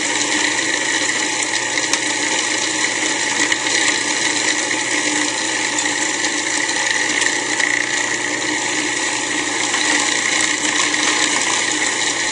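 Cuisinart Pro Classic food processor running steadily, its blade grinding a full bowl of raw cauliflower, parsnip and almonds into a coarse crumb.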